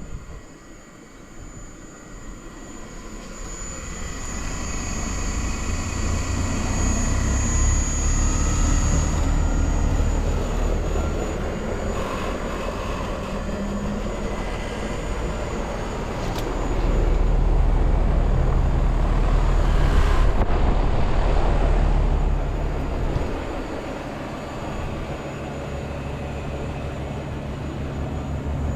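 A 10-ton Hitachi air conditioner / heat pump running up in cool mode: a steady low hum and rush of air that builds over the first few seconds, with a thin high whine at first. It grows louder again about two-thirds of the way through, then eases back a little.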